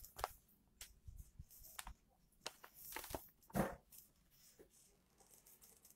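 Faint rustling of paper pages as a booklet is leafed through, a few short swishes with the loudest about three and a half seconds in.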